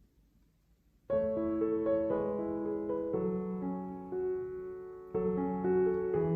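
Faint room tone, then soft background piano music comes in suddenly about a second in and plays on in slow held notes.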